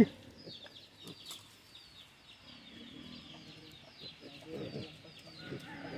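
Chicken chicks peeping over and over in short, high, falling chirps, with faint voices in the background.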